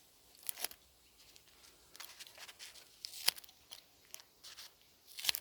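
Small spring-loaded scissors of a Victorinox Swiss Army knife cutting, a few sharp snips and crunches with faint scratching between, loudest about three seconds in and again near the end.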